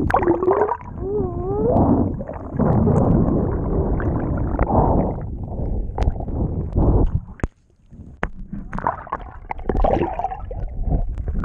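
Water gurgling and rushing over a submerged camera's microphone as a Hobie pedal kayak moves through the lake. A brief wavering tone comes about a second in, a few sharp clicks sound in the middle, and the noise drops away briefly about two-thirds through.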